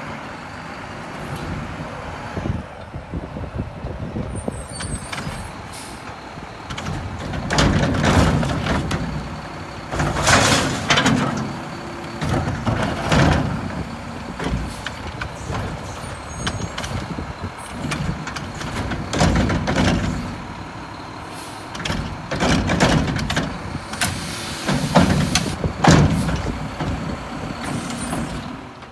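Diesel garbage truck with a Curotto-Can automated cart arm working at the curb: the engine running with several surges, air-brake hisses, and the hydraulic arm moving toward the cart.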